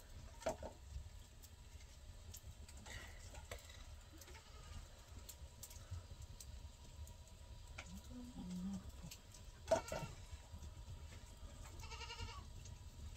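Wood fire crackling quietly with scattered faint pops and one sharper knock about ten seconds in; near the end, livestock bleats once, a short wavering call.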